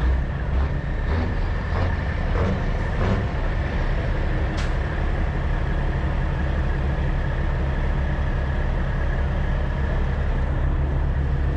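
Semi truck diesel engines idling steadily, a low even rumble with a thin steady high whine over it.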